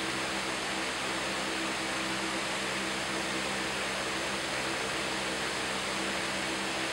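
Steady hiss with a low, even hum underneath, typical of aquarium equipment such as a filter or pump running.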